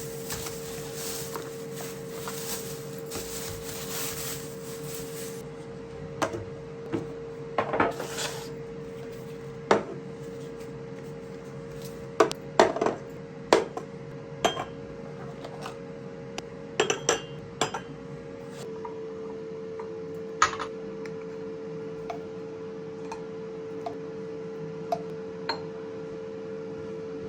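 Dishes and cutlery clinking and knocking at irregular intervals over a steady hum.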